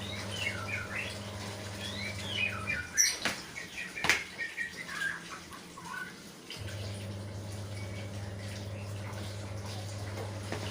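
Small birds chirping in quick, rising and falling notes over a steady electrical hum. The hum cuts out for a few seconds near the middle, when two sharp clicks are heard.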